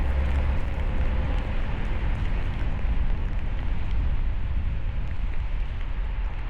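A car driving on a snowy road: steady tyre and road noise with a low rumble underneath.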